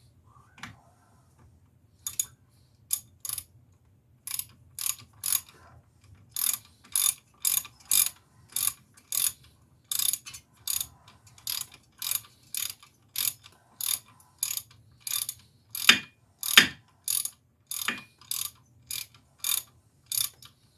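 Hand ratchet wrench clicking in steady back-and-forth strokes, about two a second, as it turns a wheel hub bearing's mounting bolts around the axle. A few strokes near the end are louder.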